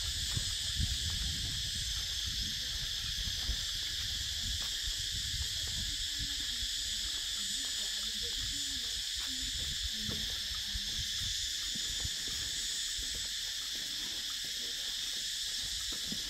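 Steady, high-pitched drone of an insect chorus, unbroken, over a low rumble.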